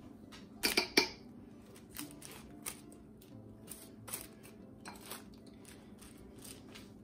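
Metal spoon clinking and scraping against a bowl and the lined slow-cooker crock while ladling a soft, wet bread-pudding mixture: a few sharp clinks about a second in, then softer scattered taps.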